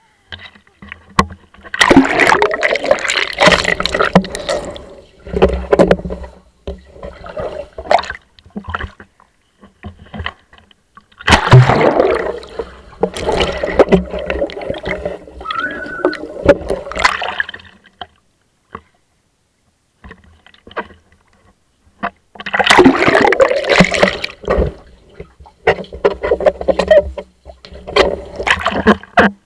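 Pool water splashing and bubbling around a GoPro-style action camera as it is plunged and swept about underwater. It comes in three long bursts with quiet gaps between them.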